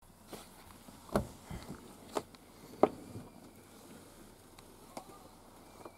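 A few sharp, scattered knocks and clicks, the loudest about a second in and just under three seconds in, over a faint steady hiss.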